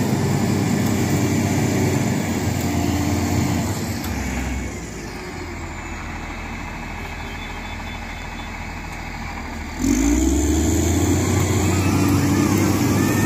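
LiuGong 4180D motor grader's diesel engine running under load as the stuck machine, its blade grounded on a heap of murum, tries to move; the engine eases off about four seconds in and revs up again near ten seconds.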